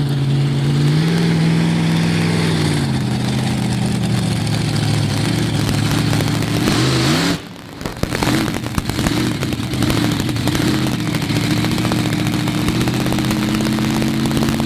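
Monster truck engine revving and running as the truck drives up onto and crushes two parked cars. About seven seconds in, a spell of sharp cracking and crunching from the crushed cars comes through the engine noise. The engine then runs at a steady pitch.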